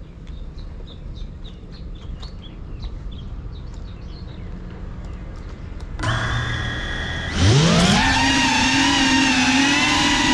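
An FPV quadcopter's brushless motors start spinning at idle about six seconds in with a steady hum. About a second later they spool up into a rising whine as the drone lifts off, the pitch wavering with the throttle. Before that there are only faint bird chirps over low background noise.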